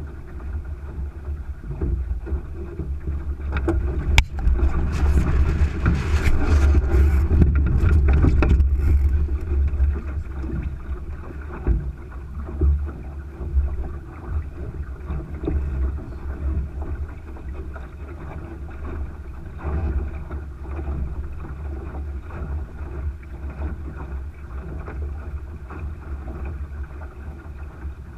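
Wind buffeting the microphone and water rushing along the hull of a Thistle sailing dinghy under way. About four seconds in a sharp knock opens a louder, noisier stretch of several seconds as the boat tacks, then it settles back to steady wind and water noise.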